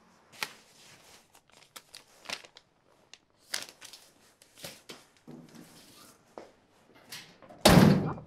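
Close handling noise: rustling of clothing and paper with scattered small clicks and knocks, then one loud thump near the end.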